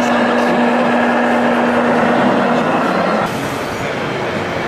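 Busy exhibition-hall noise with a steady low drone that stops about two and a half seconds in. Just after, the sound cuts abruptly to a slightly quieter hall background.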